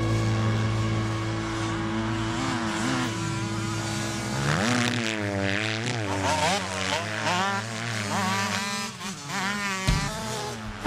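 Motocross bike engine revving hard. From about four seconds in, its pitch rises and falls again and again as the rider accelerates and shifts.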